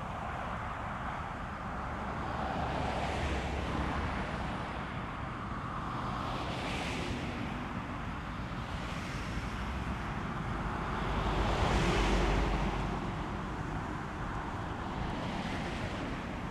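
Strong wind gusting over the microphone, a low buffeting rumble under a rushing noise that swells and fades several times, strongest about twelve seconds in.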